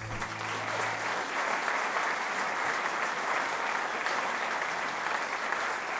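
Theatre audience applauding steadily, a dense clapping that holds throughout; the band's final low note dies away about a second in.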